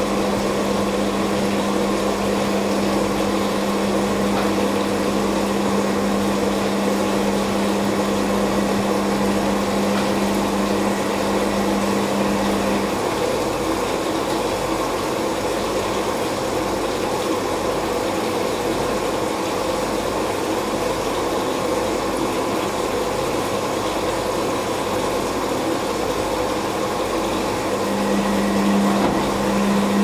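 Beko WKB 61022 front-loading washing machine in its wash phase: the drum motor hums steadily as the drum tumbles the laundry, stops about 13 seconds in for a pause of about a quarter of a minute, and starts turning again near the end. Under it runs a steady hiss.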